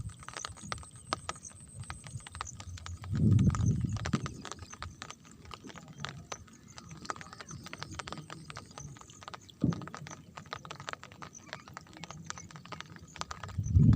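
Rain falling, heard as dense, irregular drops striking a hard surface, with a low rumble swelling about three seconds in and again at the end.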